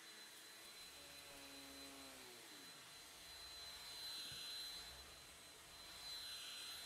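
Stick vacuum running with a steady high whine over a hiss, which swells twice as the floor head is pushed back and forth. A lower hum drops in pitch about two and a half seconds in.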